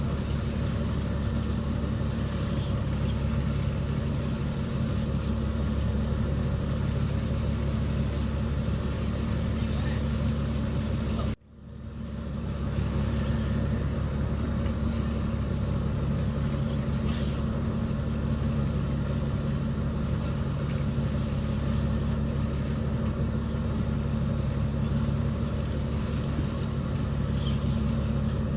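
Fishing boat's engine running steadily with an even hum. The sound cuts out abruptly about eleven seconds in and swells back within a second.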